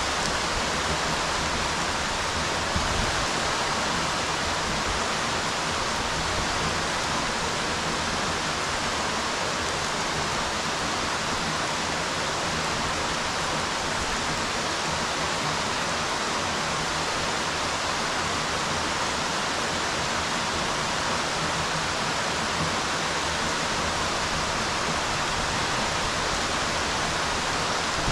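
Rain falling steadily on a swimming pool's water surface: a dense, even hiss of drops that holds the same strength throughout.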